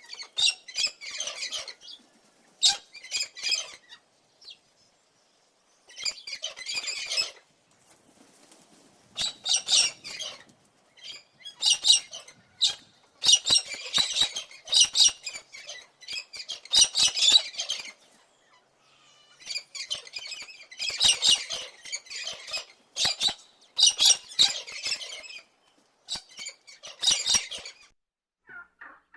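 A bird calling in repeated high-pitched bursts of rapid chirps, each burst lasting a second or two, with short pauses in between.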